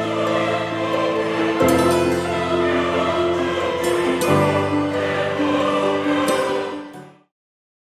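Intro music: sustained choir-like chords that change twice, then fade out to silence about seven seconds in.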